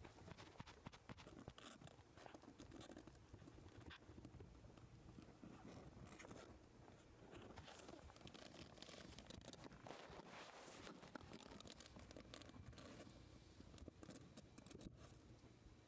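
Near silence with faint, scattered scratching and rustling: kittens' paws and bodies on a fabric blanket as they play and tussle.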